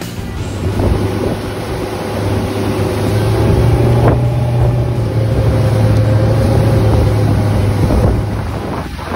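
Motorboat engine running at speed in a steady low drone, mixed with wind buffeting the microphone and rushing, splashing water; the drone drops away near the end.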